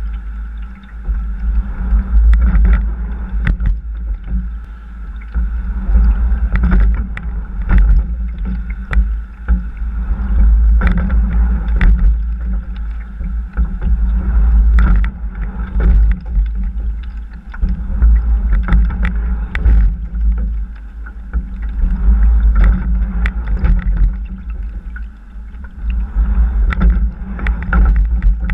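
A double sculling shell being rowed, heard from its hull: water rushing along the boat under a heavy low rumble, with sharp clicks and clunks from the oars turning in their oarlocks. The sound swells and falls with each stroke every few seconds.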